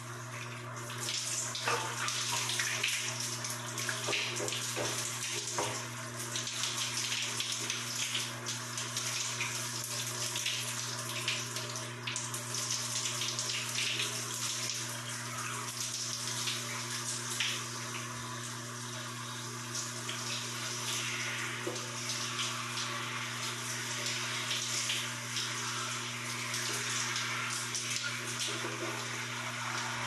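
Water spraying from a showerhead: a steady hiss of falling water with uneven splashes. It grows louder about a second in.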